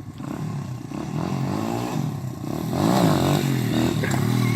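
Motorcycle engine revving up and down as the rider holds a wheelie, growing louder partway through.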